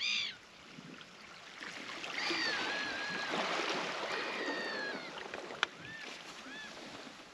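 Gulls calling: a short falling call at the start, two longer drawn-out falling calls about two and four seconds in, and two short calls near the end.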